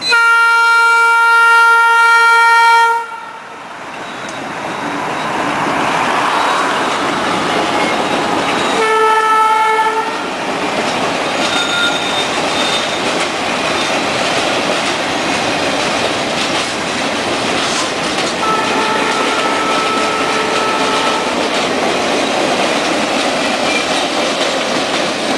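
Norfolk Southern high-hood diesel locomotive's horn giving a double toot: one long blast of about three seconds, then a short one about nine seconds in, sounded for a grade crossing. After it the freight train rolls past with a steady rumble and wheel clatter on the rails.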